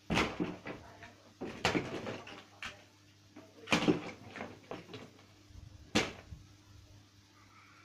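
Plastic Beyblade spinning tops and parts knocking against each other and the cardboard box as they are packed in by hand: about five separate knocks with softer rustling between.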